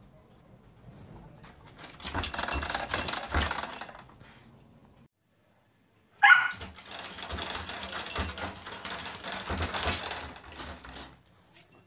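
A Labrador puppy's claws scratching rapidly at a wooden door in two frantic bouts. A short, rising high-pitched whine sounds as the second bout starts, about six seconds in.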